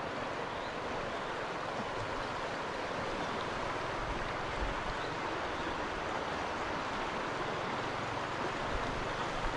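A large stream rushing, a steady even sound of running water.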